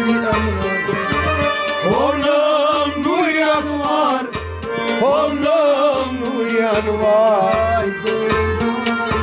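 A man singing a Kashmiri Sufi song in a wavering, ornamented voice, over a steady drum beat about twice a second and sustained instrumental notes.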